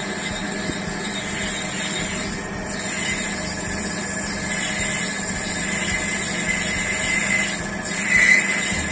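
Metal lathe running with a boring bar cutting inside a water pump's volute housing as it spins in the chuck: a steady machine hum with a high cutting whine, which swells into a brief louder squeal about eight seconds in.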